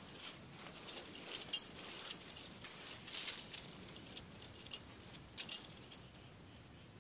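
Leaves rustling: an irregular run of crisp ticks and crackles that dies away about six seconds in.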